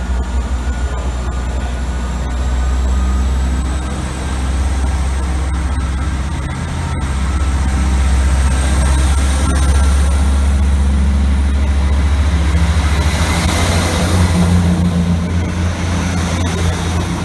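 A class 158 diesel multiple unit's underfloor diesel engines running under power as the train pulls out. It makes a steady low drone, with a faint high whine rising slowly and a rush of noise building near the end as the carriages pass.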